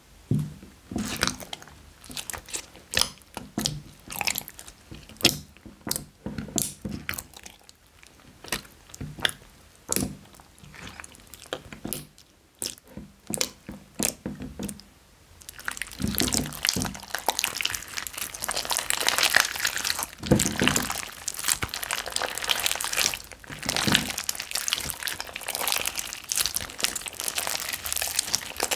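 Hands squeezing and kneading wet slime mixed with small beads in a glass dish. First come separate sticky squelches and clicks. About halfway through this turns into a dense, continuous crackling as the slime is stretched and pulled.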